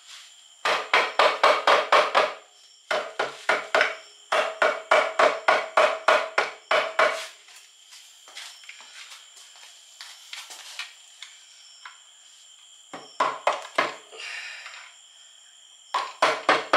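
A hammer striking the aluminium side cover of a Honda Civic Hybrid CVT transaxle case in quick runs of taps, about six a second, with pauses between the runs, to break the sealed cover loose from its locating pins.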